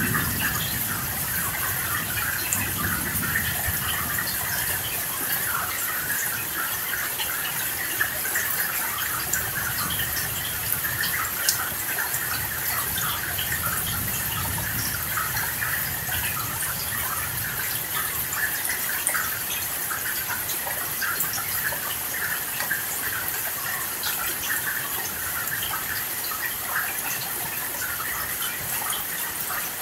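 Steady heavy rain falling, a dense even patter of drops. Faint low rumbles of distant thunder swell a few seconds in and again around the middle.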